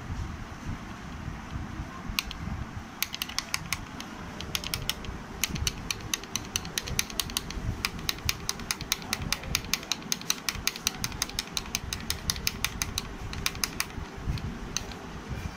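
Singer 299U buttonhole machine's mechanism clicking rapidly and evenly, about five clicks a second from about three seconds in, over a steady hum. The clicking pauses briefly near the end.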